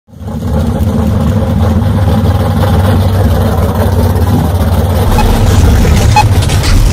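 Car engine running with a loud, steady, deep rumble. From about five seconds in, a short beep sounds about once a second.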